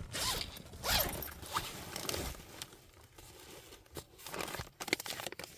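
Irregular rustling and crinkling of something being handled, with a few sharp clicks.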